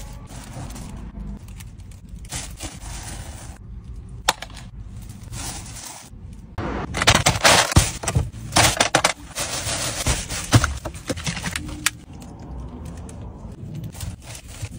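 Aluminium foil takeaway tray crinkling and scraping as it is handled and its card lid is opened, loudest from about seven to eleven seconds in. Before and after it, softer rustling of a plastic sheet and fingers in food.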